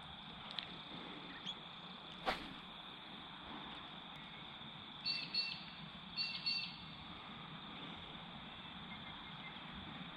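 Two short bird calls, each a quick double note, about five and six seconds in, over a faint steady high-pitched drone, with a single sharp click a couple of seconds in.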